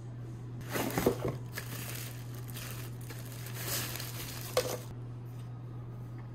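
Plastic bag crinkling in several rustling bursts as a portable clip-on fan is unwrapped, with one sharp click about four and a half seconds in, over a steady low hum.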